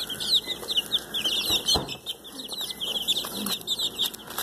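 A brood of young Öland dwarf chickens peeping constantly, many short high-pitched chirps that fall in pitch and overlap. There are a couple of sharp knocks near the middle.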